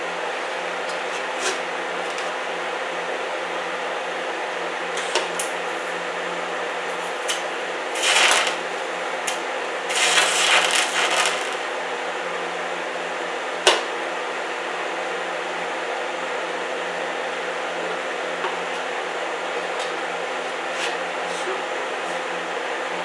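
TIG welder buzzing steadily, with short bursts of hiss about 8 and 10 seconds in and a sharp click shortly after.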